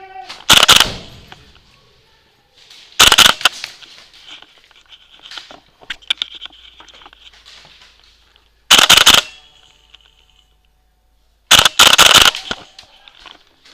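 Airsoft guns firing four short bursts of rapid shots a few seconds apart, each echoing in an indoor arena.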